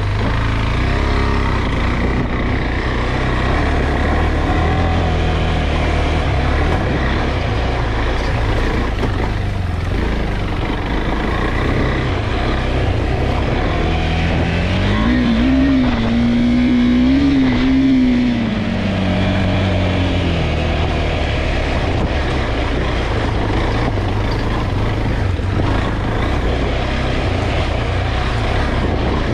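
KTM 390 Adventure's single-cylinder engine running steadily on a rocky gravel trail, with tyre and gravel noise over it. About halfway through, the revs rise, hold for a few seconds, then fall back.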